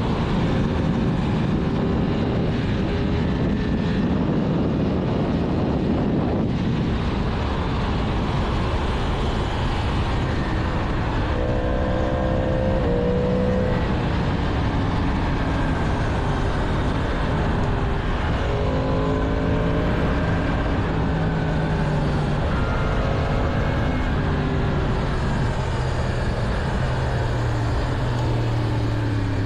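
Stock 2022 Yamaha MT-10's crossplane inline-four engine running under way, its note shifting pitch in steps several times with throttle and gear changes, over a steady rush of wind.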